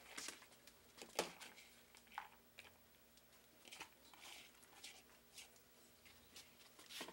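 Faint rustling of a plastic bag with scattered light clicks as diced carrots are shaken out of it into a crock pot, the loudest crackle about a second in.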